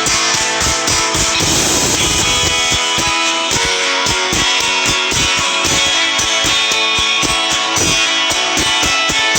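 Instrumental Nokia ringtone music led by strummed guitar, with a steady beat.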